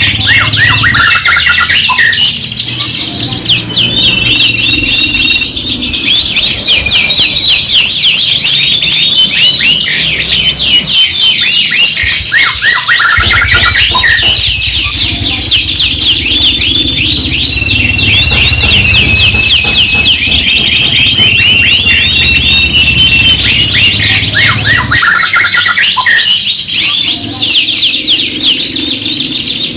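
Several domestic canaries singing at once, a dense, unbroken stream of rapid high trills, rolls and repeated chirps layered over each other.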